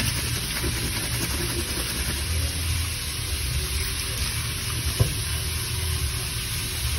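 Tap water running steadily into a sink, splashing over hands rinsing a metal chain. One sharp click about five seconds in.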